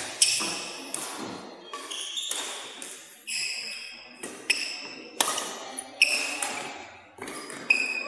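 Badminton rally: sharp racket-on-shuttlecock hits about every second, with sneakers briefly squeaking on the court floor between them, echoing in a large hall.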